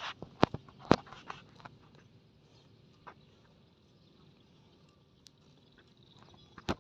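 Scattered sharp clicks and knocks: several in the first second and a half, then a few single ones, over a faint outdoor background.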